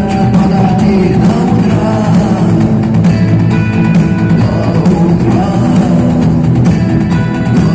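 A rock band playing live, with sung vocals over drums and guitar, loud and bass-heavy.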